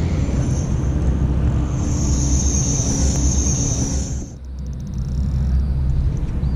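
Wind buffeting the microphone, a steady low rumble. A high hiss comes in about two seconds in and stops near four seconds, and a brief run of fast ticks follows.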